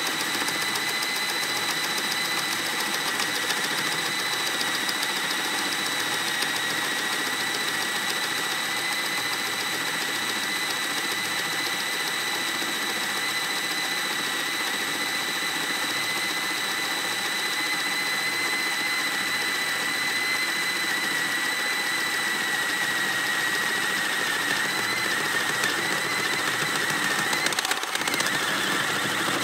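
Cordless drill driver with a 1 1/8 inch spade bit boring through a wooden board, its motor and gears giving a steady high whine. Near the end the pitch wavers and sags as the bit breaks through and starts to bind, and there is one sharp knock.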